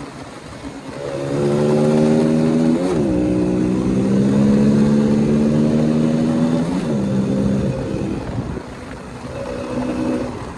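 KTM single-cylinder motorcycle engine pulling under throttle, its pitch climbing slowly with two brief dips, about three and about seven seconds in. It then eases off and quietens before picking up again near the end.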